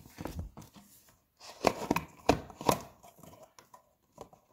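Plastic funnels clicking and knocking together as one is pushed onto another: a run of sharp knocks, the loudest four in quick succession about two seconds in.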